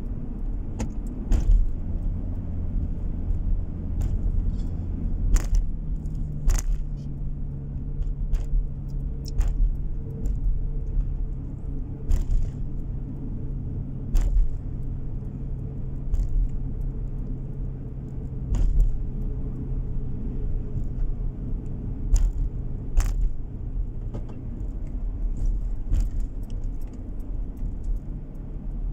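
Car driving, heard from inside the cabin: a steady low road and engine rumble, with an engine hum that drops in pitch about six seconds in. About a dozen light clicks and rattles from inside the car are scattered throughout.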